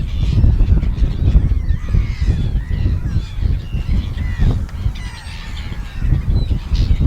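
Seagulls calling repeatedly, a run of short arching cries, over a loud low rumble.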